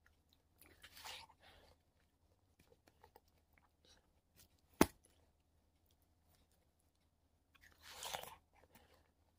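Crunching bites into frozen yellow watermelon, one about a second in and another near the end, with faint chewing crackles between. A single sharp click midway is the loudest sound.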